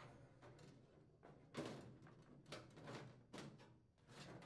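Faint scrapes and light knocks of a microwave's sheet-metal outer cover being slid back and lifted off its frame: a handful of brief sounds with near silence between them.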